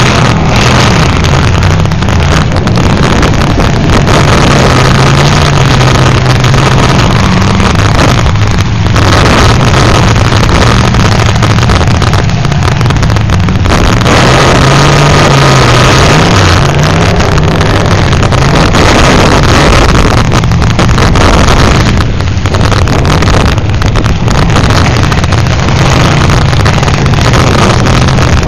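Demolition derby cars' engines running and revving, rising and falling, with heavy wind buffeting the microphone over them.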